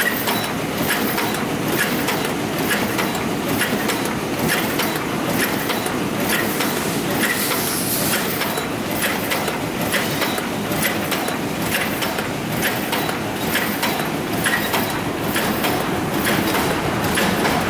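Dakiou-N paper cup forming machine running at speed: a steady, rhythmic mechanical clatter of many quick clicks from its gear-driven forming turret.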